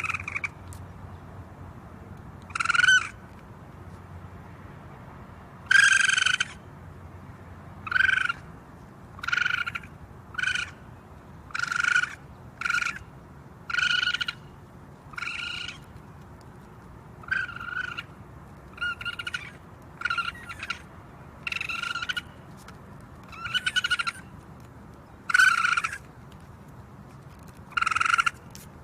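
Raccoon calling: a string of about eighteen short, high-pitched squealing calls, one every one to three seconds, over a steady background hiss.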